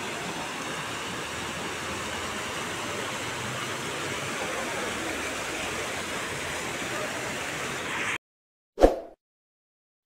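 Fountain jets splashing steadily into their pool, a continuous rush of falling water. It cuts off abruptly about eight seconds in, and a single short, loud thump follows a moment later.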